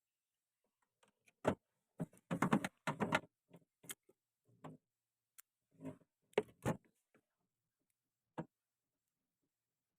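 A scattered series of short knocks and clicks, bunched about two seconds in and again past the middle, with a last single knock near the end.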